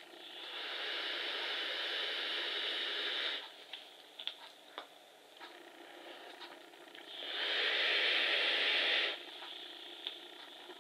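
Two long drags on a rebuildable dripping atomiser (Troll) firing at 60 watts on a 0.33 ohm coil: a steady hiss of air drawn through the deck with the coil sizzling, the first about three seconds long, the second about two seconds, starting some seven seconds in. Between them come a softer breath out and a few small clicks.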